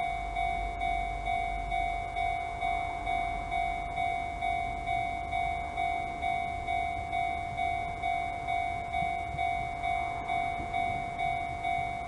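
Japanese railway level-crossing alarm in the Chichibu Railway style, an electronic bell ringing the same ding over and over at an even pace, the warning that a train is approaching. A low rumble runs underneath.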